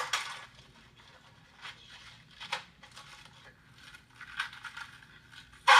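A string of short clicks and scrapes of objects being handled, ending in a louder clatter near the end.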